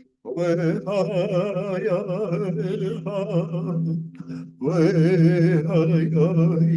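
Chanted singing: a wavering, ornamented vocal line over a steady held low note, breaking off briefly about four seconds in before resuming.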